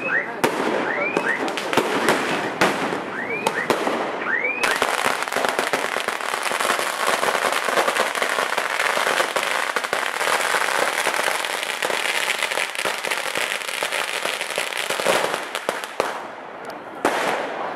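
Fireworks: several short whistles gliding up in pitch over scattered pops for the first four seconds or so. Then a long string of firecrackers goes off in a dense, continuous crackle of rapid bangs for about ten seconds, thinning out near the end.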